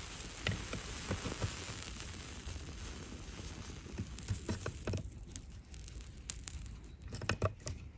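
Scattered light clicks and scrapes of a metal tool, pliers by the look of it, prodding a sectioned phosphorus incendiary rifle bullet. A faint steady hiss lies under the first few seconds, and the clicks come thickest near the end.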